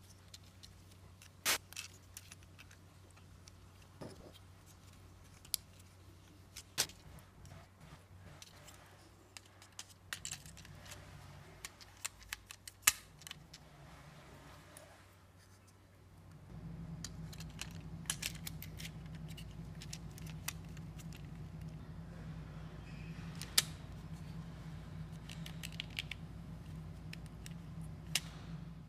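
Scattered sharp clicks and taps of a DualShock 4 controller's clear plastic shell, buttons and rubber button pads being handled and pressed together, a few clicks much louder than the rest. A steady low hum comes in about halfway and runs under the clicks.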